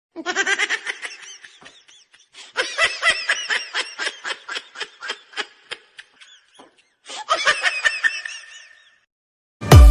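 Laughter in three bursts of quick ha-ha pulses, about five a second, the longest lasting some four seconds. Loud electronic dance music starts abruptly at the very end.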